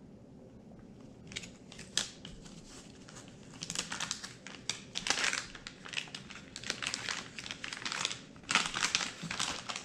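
Plastic soft-bait lure packaging crinkling as it is handled. It starts about a second in with scattered crackles and gets busier from about three and a half seconds.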